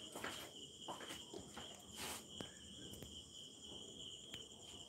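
Faint, steady chirping of crickets, a continuous high trill, with a few soft clicks.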